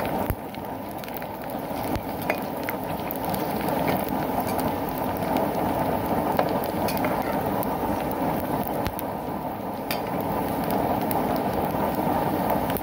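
Pork rinds frying and puffing into crackling in hot oil in an aluminium pot: steady sizzling with many scattered sharp pops and crackles. Underneath runs a steady low rushing from the waste-oil stove's burner.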